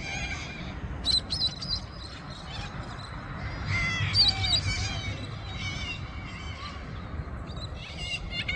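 A flock of noisy birds calling from the trees, several voices at once, with loud bursts of calls about a second in, around four seconds in and near the end.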